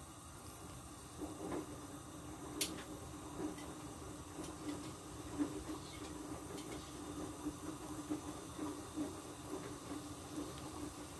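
Pot of chicken soup at a rolling boil: a steady bubbling and hiss with small irregular pops, and one sharp click about two and a half seconds in.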